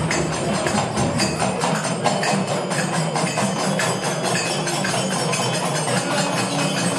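A group of small handheld drums beaten together in a fast, even rhythm.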